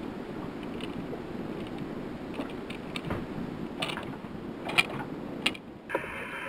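Fishing reel being cranked steadily, its gears turning with scattered light clicks, under the load of a heavy fish being reeled up. Near the end a marine VHF radio switches on with a hiss.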